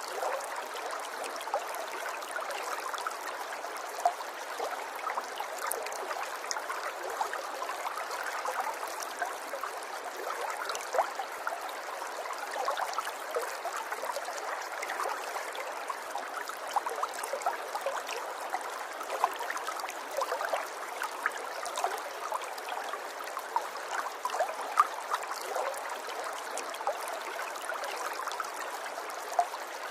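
River water flowing and burbling steadily over stones, with many small splashes and trickles.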